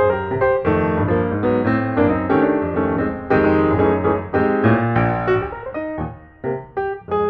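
Background piano music, a run of struck notes that ring and decay.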